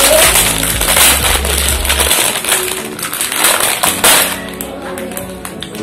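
A plastic bag of kerupuk crackers crinkling and crackling as it is squeezed and the crackers inside are crushed, over background music.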